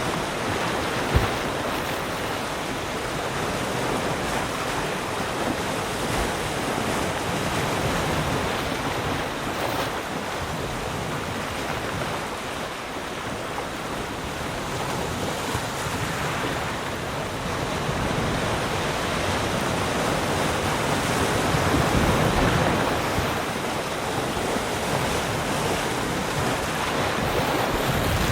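Ocean surf: a continuous rush of waves breaking and washing in, swelling and easing slowly over several seconds. There is one brief low thump about a second in.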